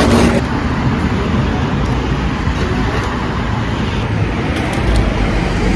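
Steady road noise of a moving vehicle, a low rumble with a constant hiss.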